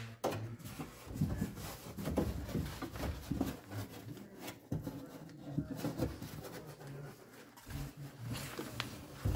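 Irregular handling noises: rustling and light knocks as hands move around the truck's open door shell and its loose plastic moisture barrier.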